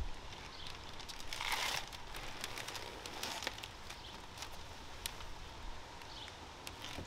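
Faint scattered clicks and a short rustle about one and a half seconds in, with a weaker rustle a couple of seconds later.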